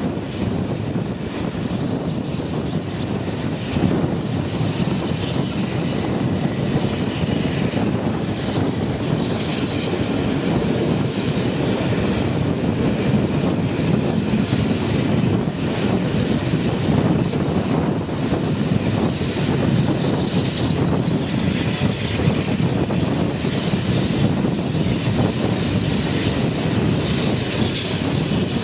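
Passenger train hauled by steam locomotive 01 1066 running at speed, heard riding aboard: a steady rolling and rushing noise with wind buffeting the microphone.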